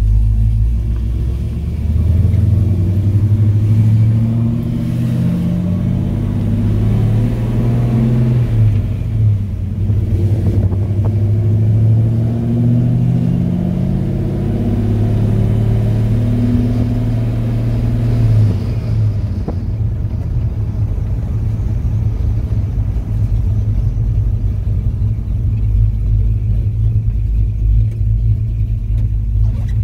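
Chevrolet C10 pickup's 355 small-block V8 running through Hooker headers and dual exhaust while driving. The engine note rises and falls with the throttle, holds steady for a stretch, then settles into a lower rumble about two-thirds through.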